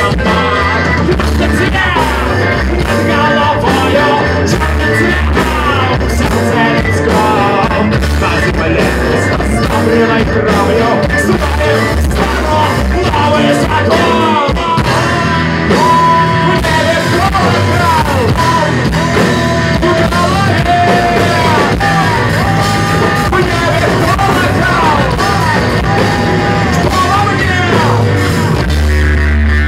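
Rock band playing live between sung verses: a melodic lead line gliding and bending in pitch over bass and drums.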